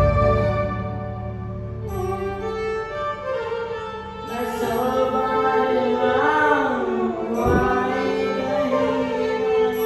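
Music: a sustained melody of held notes that slide up and down in pitch, with no speech.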